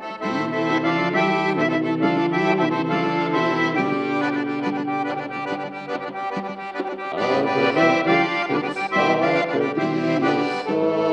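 Traditional folk music led by an accordion, playing continuously.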